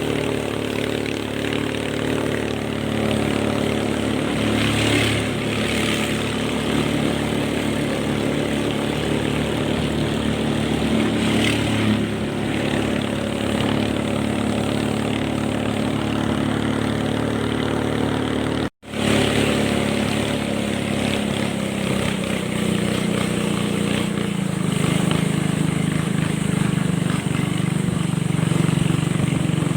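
Boat engine running steadily under way, over a hiss of wind and water. The sound cuts out for an instant about two-thirds through, and the engine note then rises a little.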